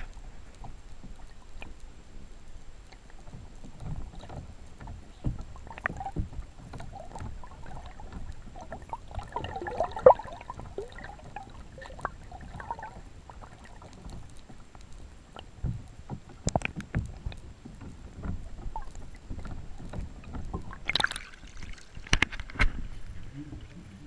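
Muffled underwater sound from a camera in its waterproof housing: a low rumble of moving water with scattered knocks and clicks and a louder patch about halfway. Near the end a brighter splashy burst as the camera breaks the surface.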